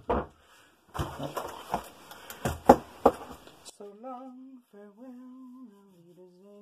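Rustling and a couple of sharp knocks as hands move over a finished cardboard jigsaw puzzle. About four seconds in, a person starts humming a slow tune in long held notes.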